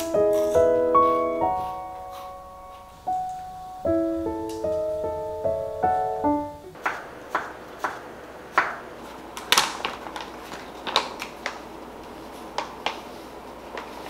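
Gentle piano background music stops abruptly about halfway through. It is followed by a chef's knife slicing a vegetable on a wooden cutting board: irregular crisp knocks, a few per second.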